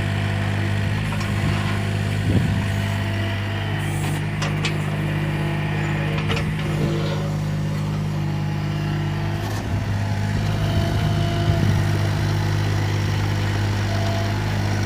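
Mini excavator's Yanmar diesel engine running steadily at a low, even speed, with a few brief knocks about 2, 4 and 6 seconds in.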